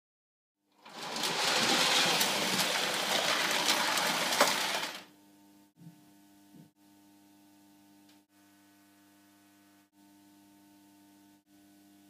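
A loud, dense mechanical rattle full of small clicks from the Lionel O gauge toy train layout, lasting about four seconds and cutting off suddenly. A faint steady electrical hum follows, with two small knocks soon after.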